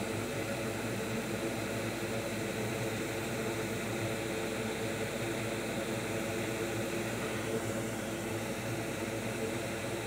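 A steady whir with faint steady hum tones underneath, unchanging in level.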